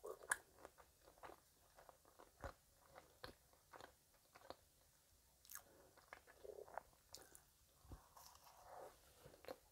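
Faint close-miked chewing of a soft cream-filled donut: scattered small wet mouth clicks and smacks, with another bite taken near the end.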